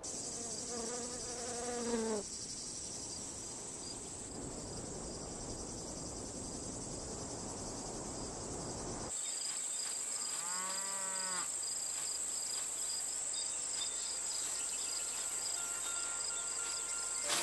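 Crickets chirring steadily in a high, pulsing band, with a cow mooing twice: once near the start and once about ten seconds in.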